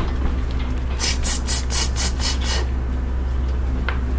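About seven quick rhythmic scraping strokes, roughly four a second, over a steady low hum.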